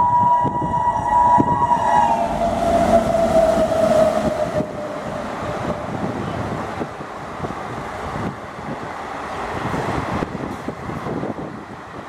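Multi-tone horn of a WAP-7 electric locomotive, its pitch falling over the first few seconds as it speeds past, then dying away. The express's coaches follow at speed, the wheels clattering over the rails with a steady rushing rumble.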